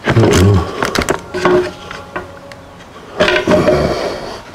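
A plastic rotary-tool accessory case and small packages being handled: clattering and rustling in bursts, loudest at the start and again after about three seconds.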